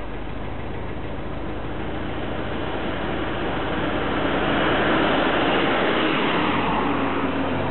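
A motor vehicle running: steady engine hum under a dense rush of road or wind noise, which swells about halfway through and then eases a little.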